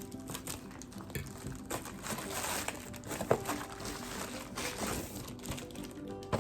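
Packaging being handled and opened, crinkling and rustling, with a sharp click about three seconds in and another at the end, over soft background music.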